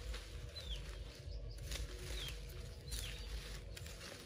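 A small bird repeats a short high whistle that falls in pitch, three times. Under it come a few faint crisp snaps as water spinach stems are cut with a knife.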